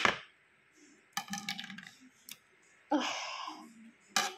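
Kitchen knife tapping and scraping on a plastic cutting board while cutting up a soft, overripe mango: single sharp clicks, a quick run of clicks about a second in, and a longer scrape around three seconds in.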